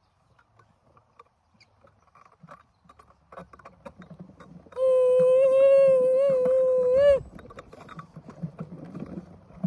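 A towed plastic ride-on wagon rolling over grass, making a low rumble with scattered clicks and rattles; it starts a few seconds in, after a nearly silent start. About halfway through, a loud, steady, high held note sounds for a little over two seconds, wavering slightly and bending up just before it cuts off.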